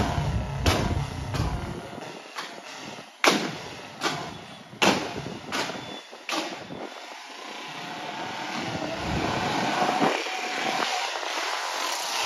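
Royal Enfield Bullet single-cylinder motorcycle with a loud exhaust firing a series of sharp backfire pops ('pataka'), about seven cracks in the first six and a half seconds, the loudest near three and five seconds in. After that the engine runs on more steadily.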